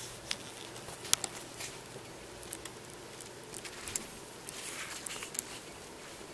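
Pet hamster eating, cracking and chewing seeds: irregular small sharp clicks and crunches, the loudest about a second in and a quick cluster a little before the end.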